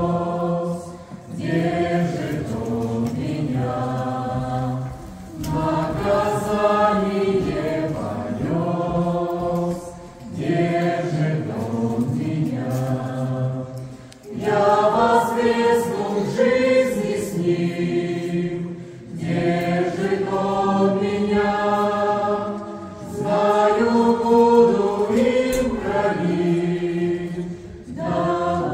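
Small mixed choir of men and women singing a Russian-language Christian song, in sung phrases of a few seconds each with short breaths between them.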